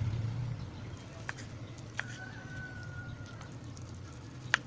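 Kitchen knife chopping through leftover roast pork on a wooden cutting board: three knocks of the blade on the board, the loudest near the end. Over a steady low hum, a thin steady high tone lasts over a second in the middle.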